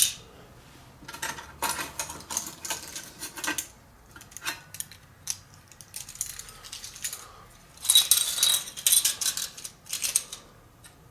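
Small hard scrap laptop parts being handled and set down: irregular clicks and clatter, with a denser burst of rattling about eight seconds in.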